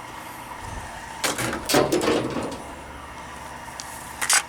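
Clatter of junk, including plastic items, being handled and tossed from a pickup truck: a few sharp knocks and rattles about a second in, then one more sharp knock near the end.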